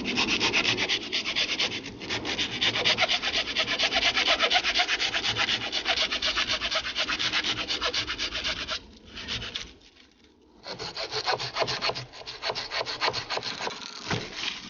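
Portable hand saw cutting through wood in quick back-and-forth strokes, with a pause of about a second and a half about two-thirds of the way through before the sawing resumes a little quieter.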